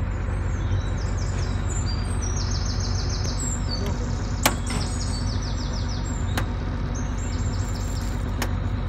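Truck-mounted borewell drilling rig running with a steady low rumble, while birds chirp in quick repeated series over it. Three sharp clicks come about two seconds apart in the second half, the first the loudest.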